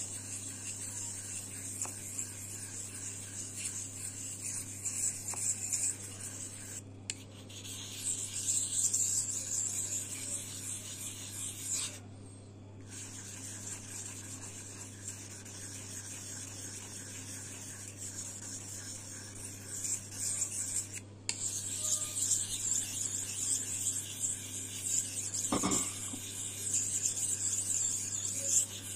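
Steel knife blade being stroked back and forth on a Cretan (oil) whetstone, a steady rasping hiss that pauses briefly a few times. A faint low hum runs underneath, and there is one small knock near the end.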